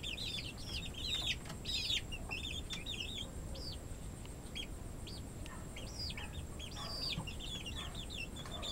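Young chicks peeping: a continuous run of short, high-pitched chirps, several a second, from a brood of chicks.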